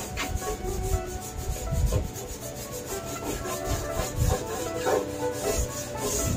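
Hand brush scrubbing the rusty steel sheet metal of a 1965 Mustang's cowl, in irregular rough back-and-forth strokes. Music plays in the background.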